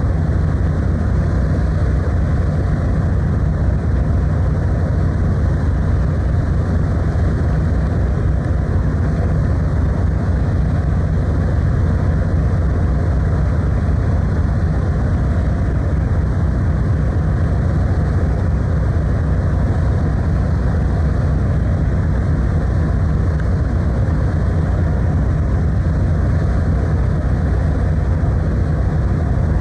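Steady low drone of the car ferry Kuniga underway: engine and hull noise with a rush of wind and water, unchanging throughout.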